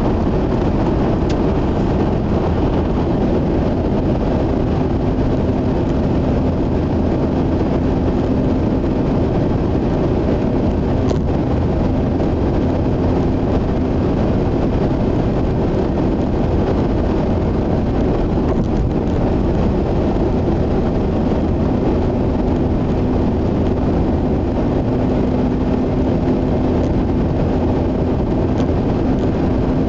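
Mazda RX-8 cruising at expressway speed, heard inside the cabin: steady tyre and road noise with a constant hum from its two-rotor rotary engine.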